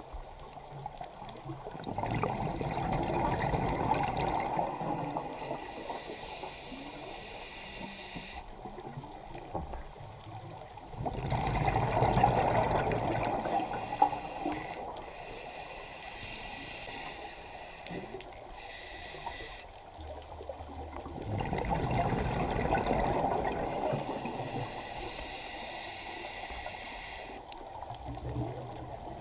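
A scuba diver's regulator heard underwater: three long rushes of exhaled bubbles, about ten seconds apart, with quieter stretches between breaths.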